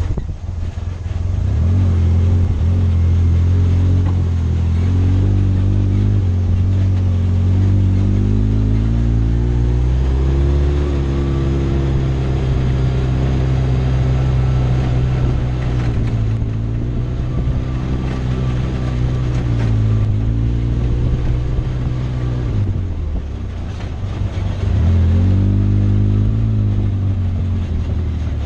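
Side-by-side UTV engine running as it is driven, its pitch rising and falling with the throttle. It eases off briefly about 22 seconds in, then picks up again.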